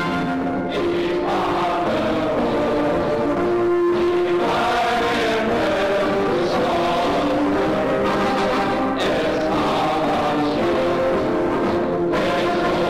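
Music: a choir singing slow, held chords that change every second or two.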